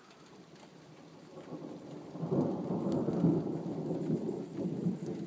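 A roll of thunder rumbling: it builds from quiet to its loudest about two to three seconds in, then slowly fades, with rain falling.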